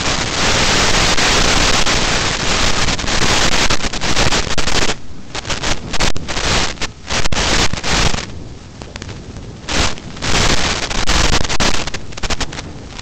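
Loud rushing hiss and crackle that cuts in and out abruptly in bursts, typical of the audio from an analog FPV video link breaking up under radio interference.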